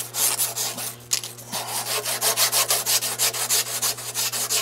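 A strip of 320-grit emery cloth pulled back and forth around a revolver's steel cylinder arbor, shoe-shine style, polishing it smooth. It makes a rasping rub in quick, even strokes that settle into a steady rhythm after the first second or so.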